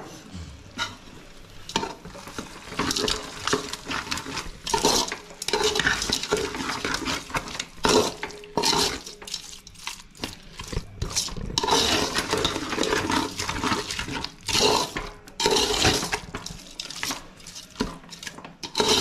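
Perforated metal ladle stirring and scraping a thick onion-tomato masala in a large metal pot, in irregular scrapes and clanks against the pot.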